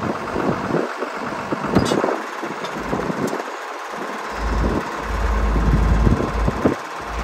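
Wind buffeting the microphone in irregular gusts, strongest from about four to six and a half seconds in, over a steady mechanical running noise.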